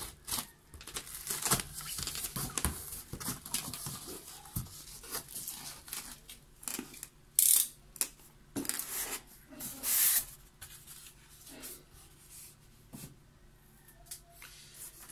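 Cardboard box being opened: a box cutter slitting the packing tape, then flaps folded back and a styrofoam insert pulled out, in a run of irregular scrapes, tearing and crinkling. Two louder scraping rushes come about halfway and two-thirds of the way through.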